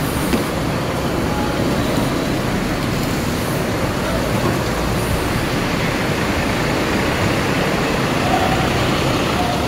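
Coach bus diesel engine running as the bus drives slowly past at close range, a steady low engine sound throughout.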